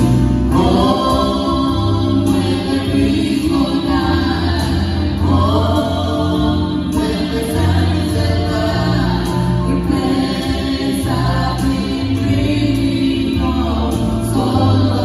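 A small mixed group of men and women singing a gospel song together into microphones.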